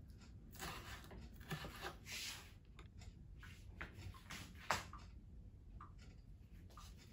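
Faint kitchen handling sounds: a knife cutting bell pepper on a wooden cutting board, then scattered soft rustles and knocks, with one sharper click a little past halfway.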